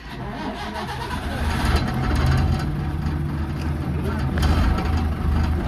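Diesel engine of a BR Class 122 'bubblecar' single-car railcar running at the platform, a steady low throb that grows louder over the first two seconds, with people talking under it.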